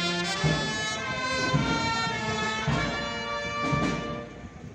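Passion band of brass and drums playing a slow processional march: held brass notes over regular drum beats, dropping in level near the end.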